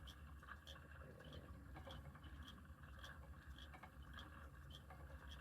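Faint, even clicking about twice a second over a low steady hum: a spinning wheel turning as wool and dog undercoat are spun into yarn.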